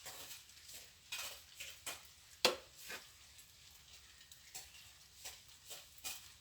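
Steel plastering trowel scraping and clinking against wet mortar in short, irregular strokes, with one sharp knock about two and a half seconds in.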